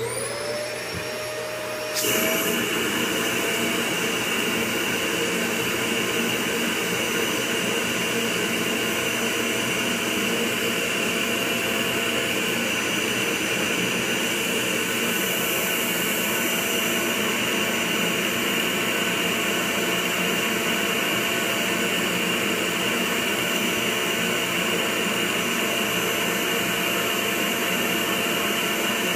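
A vacuum cleaner motor starts with a rising whine and, about two seconds in, steps up to a loud, steady running with a constant high whine. Its hose is on the valve of a vacuum storage bag packed with clothes, drawing the air out so the bag shrinks flat.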